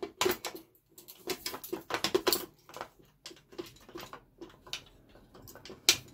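Handling noise of an aluminium snoot being fitted onto a Bowens-mount flash holder: irregular clicks, knocks and scrapes of metal on the mount, with one loud sharp click near the end.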